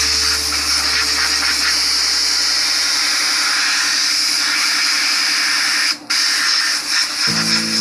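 Compressed-air blow gun hissing steadily as it blasts air over a metal automatic transmission part to clear it of washing solvent, cutting out briefly about six seconds in.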